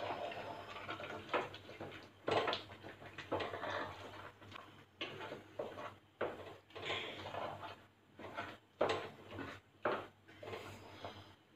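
A spatula scraping and knocking against an aluminium pot as a thick mash of tapioca and chicken is stirred together, in irregular strokes about one or two a second.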